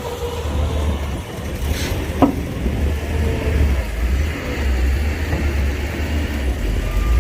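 Heavy diesel earthmoving machinery running with a deep, steady rumble. About two seconds in comes a brief hiss, then a short sound sliding down in pitch.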